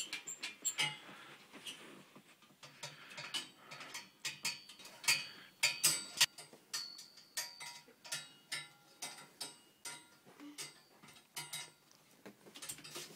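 Irregular clacks and knocks, several with short metallic rings, as toy swords or sticks strike and rattle against a metal bunk-bed frame.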